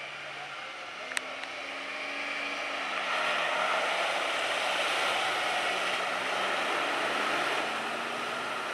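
Off-road 4x4 engine running under load with a slowly rising and falling pitch as the vehicle drives into deep muddy water, joined from about three seconds in by loud splashing and rushing of the bow wave and spray. A single sharp click about a second in.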